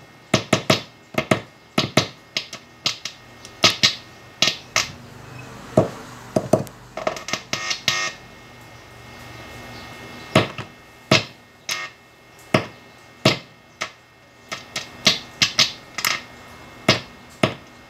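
A small metal screwdriver tapping on the pickups of an HSS Strat-style electric guitar, heard through the amplifier as a string of sharp, irregular clicks. This is a tap test to check that each pickup and the wiring work. A faint steady amplifier hum runs underneath.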